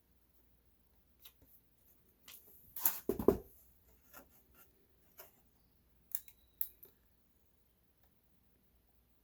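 Scattered clicks and knocks of a hard plastic RC crawler body and parts being handled, with a louder clatter about three seconds in.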